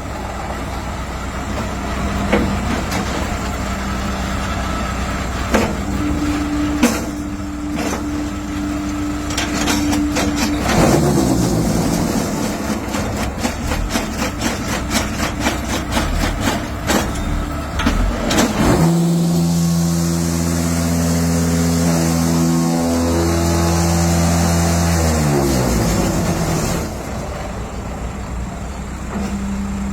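Automatic pumice block-making machine working through a production cycle over a steady hydraulic hum. Scattered knocks give way to a run of fast clattering, then the machine's vibrators spin up into a loud, steady, deep hum that compacts the mould and winds down with a falling pitch near the end.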